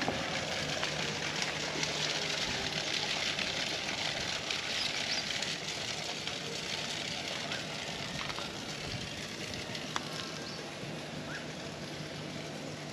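Outdoor background: a steady hiss that slowly fades, over a low steady hum, with a few faint ticks.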